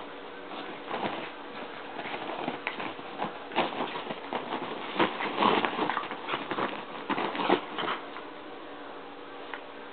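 Two miniature pinschers wrestling on a comforter: scuffling, rustling fabric and quick pattering taps of paws. The scuffle is busiest and loudest from about three and a half to eight seconds in, then settles.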